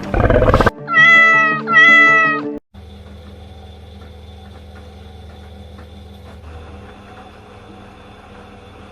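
A cat meowing twice, each meow rising then falling in pitch, about one and two seconds in, over background music. Then only a much quieter steady background.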